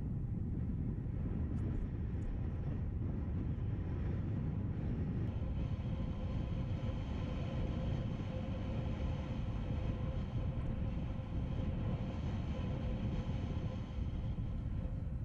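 Strong wind buffeting a sail-mounted action camera's microphone in a steady low roar while windsurf foiling, with water rushing under it and a faint steady hum in the middle stretch.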